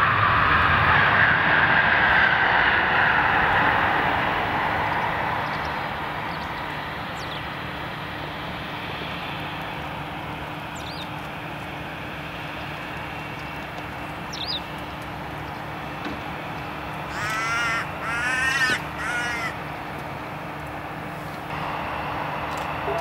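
Boeing 737-800's CFM56-7B jet engines on the landing rollout, loud at first and dying down over the first few seconds to a steady rumble. About three-quarters of the way through, a crow caws three times.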